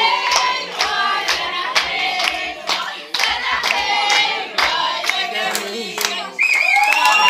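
A group of people singing together while clapping in time, about two claps a second. A little after six seconds the clapping stops and a long high note is held over the voices.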